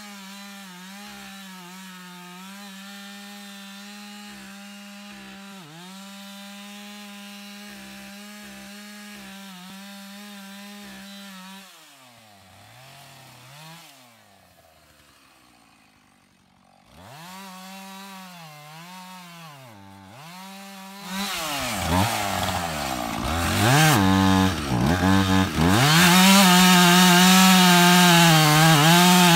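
Husqvarna two-stroke chainsaw cutting into the trunk of a large oak tree. The engine runs at high revs with brief dips in pitch under load, eases off and revs back up about halfway through, then grows much louder over the last third as the chain bites in, with the rasp of wood being cut.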